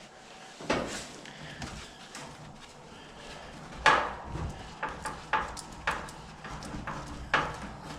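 Irregular clicks and knocks of a hand screwdriver and the dryer's sheet-metal parts being handled while a self-tapping screw is fitted, with a few louder knocks spread through.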